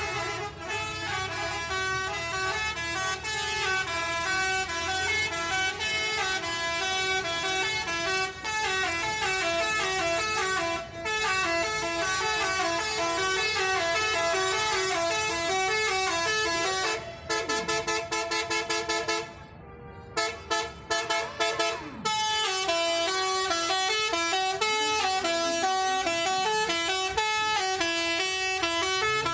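Telolet bus horn, a bank of multi-tone air horns, playing quick up-and-down melodic runs. About two-thirds through it switches to a fast burst of short staccato toots, breaks off for under a second, then goes back to the melody.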